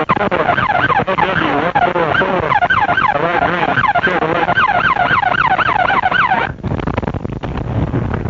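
Police car siren in a fast yelp, its pitch sweeping up and down about three times a second. It cuts off suddenly about six and a half seconds in, leaving only the patrol car's engine and road noise.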